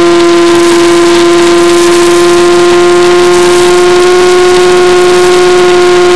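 Brushless electric motor and propeller of a Mini Skywalker FPV plane in flight, heard from the onboard camera as a loud, steady whine. Its pitch rises slightly about four seconds in.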